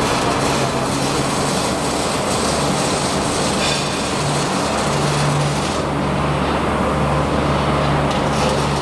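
Robotic arc welding: a steady crackling arc over the hum of the welding cell's machinery. The crackle eases off about six seconds in and picks up again near the end.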